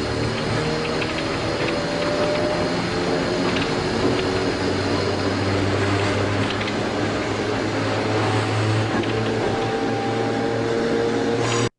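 Tobu 5700-series electric train running, heard from the cab: the whine of its nose-suspended traction motors and gears, with a tone that slowly rises over the last few seconds, and faint clicks of the wheels over rail joints and points. Just before the end the sound cuts out for a moment.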